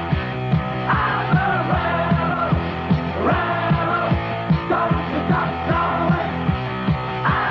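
Rock song with singing and a steady drum beat, played from an old cassette tape recording.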